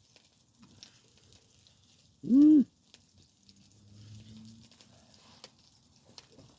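A short hummed 'mm' from a person, about two seconds in, its pitch rising and then falling, over faint scattered ticks.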